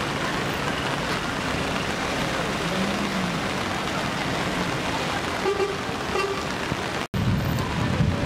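Steady rush of muddy floodwater in the street mixed with traffic noise, with a brief car-horn toot about five and a half seconds in. The sound drops out for an instant near seven seconds and comes back louder and deeper.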